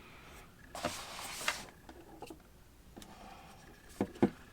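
Handling noise as a handheld smartphone gimbal and its accessories are handled: a brief rustle about a second in, then a few sharp plastic clicks near the end, the last one the loudest.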